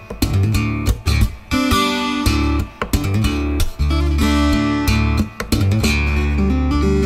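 Background music: guitar-led song with a strong bass line and a steady beat.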